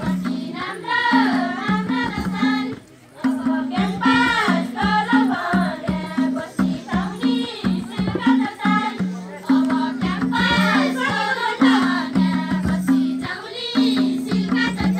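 Folk song: voices singing a wavering melody over a low accompaniment that steps back and forth between two held notes, briefly breaking off about three seconds in.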